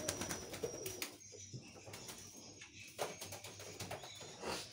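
Domestic pigeons: a flurry of wing flaps in the first second as a pigeon is let go, then quieter pigeon cooing with a couple of single clicks.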